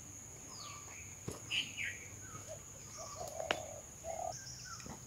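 Several birds chirping and calling outdoors: short falling chirps and brief whistled notes, with two light clicks, over a faint steady high-pitched tone.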